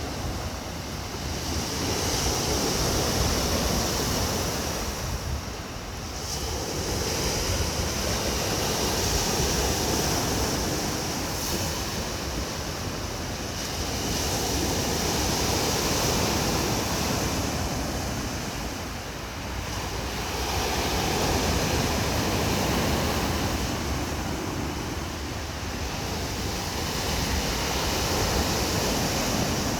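Sea surf: waves washing in and drawing back, the noise swelling and falling about every six seconds.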